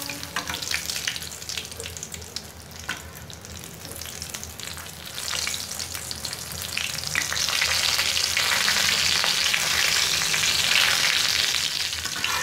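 A breaded chicken drumstick sizzles in hot oil in an aluminium kadai, with a metal spatula scraping and pressing it against the pan. The sizzling drops back for a few seconds, then grows louder about halfway through.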